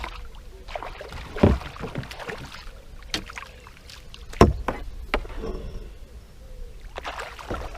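Handling noises in a small fishing boat: a few sharp knocks against the boat and light rustling, over a steady low rumble of wind on the headcam microphone.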